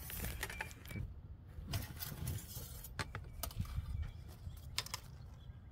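Scattered clicks, knocks and rattles of hands working in a car's engine bay as the oil dipstick is reached for, over a low steady rumble.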